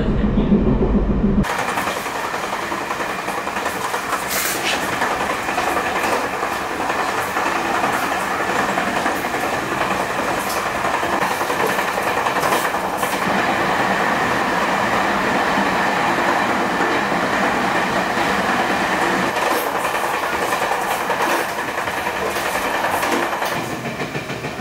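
Passenger train running along the track: a steady rushing noise with scattered sharp clicks. About a second and a half in, the sound changes abruptly from a deeper rumble to the brighter, hissier running noise.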